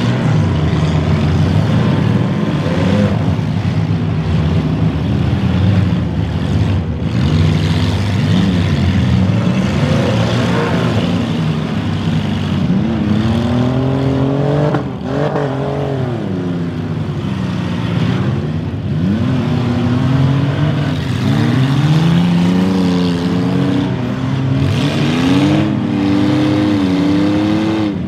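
Several demolition derby cars' engines revving loudly together, their pitch rising and falling over and over as the cars accelerate, back up and spin their tires on dirt.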